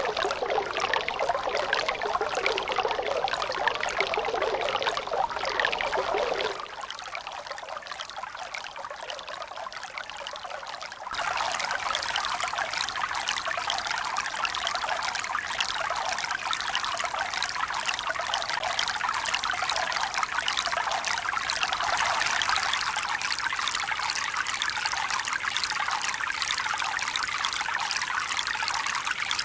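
Running water trickling and splashing steadily. About six seconds in it drops suddenly to a quieter, thinner trickle, and it comes back at full strength about five seconds later.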